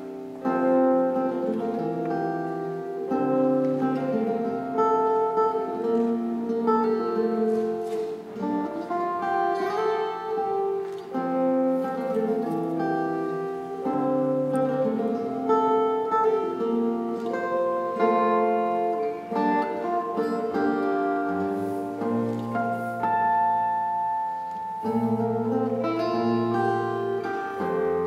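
Solo steel-string acoustic guitar played fingerstyle: a plucked melody over ringing chords and bass notes, with deeper bass notes sounding in the last few seconds.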